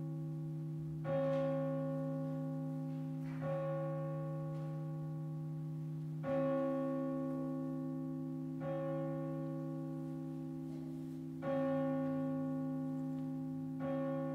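A single church bell tolling at the same pitch, struck six times at about two-and-a-half-second intervals, each stroke ringing on and overlapping the next.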